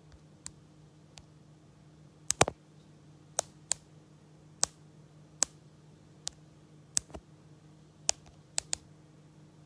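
Fingertips tapping a smartphone's touchscreen close to its microphone: about sixteen sharp, short taps at uneven spacing, one or two a second, the loudest a quick cluster about two and a half seconds in.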